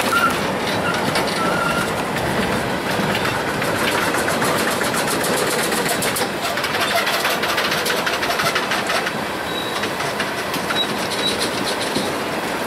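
Freight train of tank cars rolling past, steel wheels clicking over the rail joints, with a few brief high wheel squeaks.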